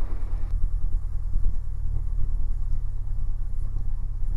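Cessna 172's piston engine running steadily at low taxi power, a low drone.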